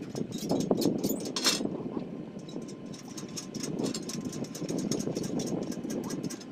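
An engine running steadily at idle, with scattered sharp clicks over it.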